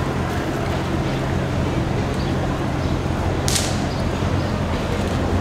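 City street traffic noise with a steady low engine hum, and one short, sharp hiss about three and a half seconds in.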